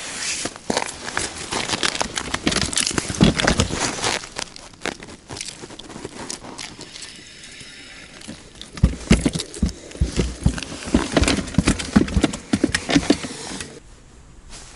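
Close rustling and crackling of clothing and hands handling against the camera microphone, with many sharp clicks, in two spells with a short lull in the middle.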